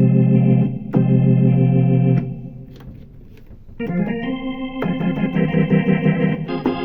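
Roland VR-09 combo keyboard playing held organ chords on an edited organ tone: two loud sustained chords, a softer stretch, then a run of changing chords from about four seconds in.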